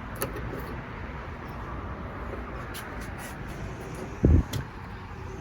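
Hands working a liftgate latch's wiring connectors: a few faint clicks and one dull thump about four seconds in, over steady outdoor background noise.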